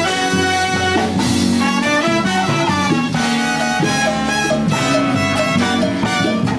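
Cuban salsa band playing an instrumental passage, with no singing yet.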